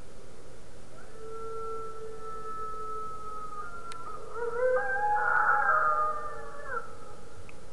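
A recording of Mexican wolves howling, played back: one long steady howl from about a second in, then several wolves join in with overlapping, gliding howls, the loudest part, which fade out about a second before the end.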